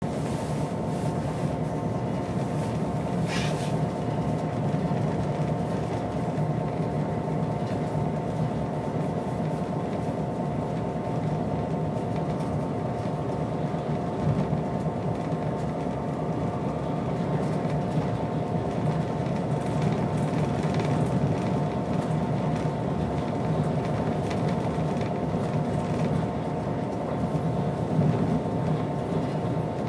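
Class 67 diesel locomotive running at speed, heard from inside its cab: a steady drone with a constant whine over the noise of wheels on the rails.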